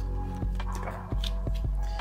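Background music with held notes.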